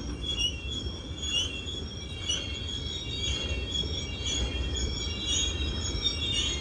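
BNSF freight train rolling slowly with its brakes squealing: many overlapping high-pitched squeals that keep starting and bending in pitch, over a steady low rumble of the rolling cars.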